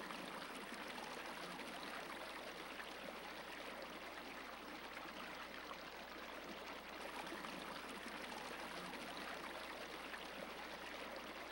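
Steady, even rushing noise with no distinct events, the kind given by running water or wind on an outdoor microphone.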